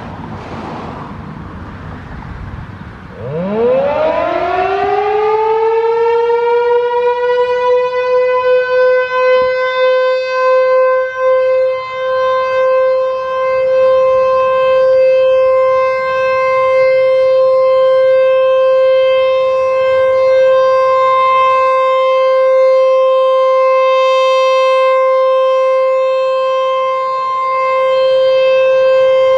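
American Signal Corporation T-128 outdoor warning siren winding up about three seconds in, its pitch climbing quickly and then holding one steady alert tone, the loudness wavering at times. Wind noise on the microphone before the siren starts.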